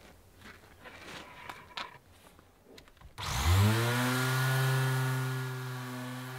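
A few faint handling clicks and taps. Then, about three seconds in, an electric palm sander switches on: its motor spins up with a quickly rising whine, settles to a steady pitch, and runs on as it sands an MDF board.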